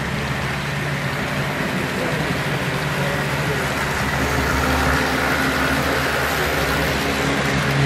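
Model diesel locomotives and freight cars rolling past on the layout track: a steady mechanical hum and rumble that grows a little louder as the locomotives go by about halfway through.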